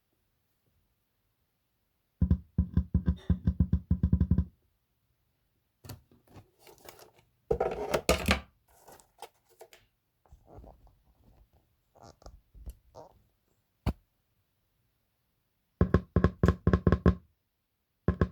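Subwoofer driver popping and crackling in fast runs, about six to seven pops a second, as 9-volt batteries are tapped against its terminals. It happens twice, about two seconds in and again near the end, with handling and rustling in between.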